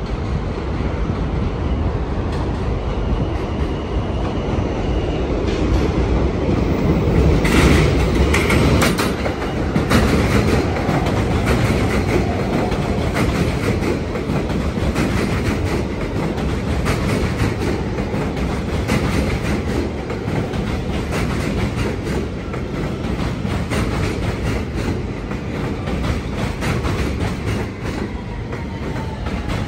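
New York City subway train of stainless-steel cars running along an elevated track and past the platform, wheels clattering over the rail joints. The clatter is loudest about eight seconds in as the leading cars come alongside, then settles into a steady rolling rumble as the rest of the train goes by.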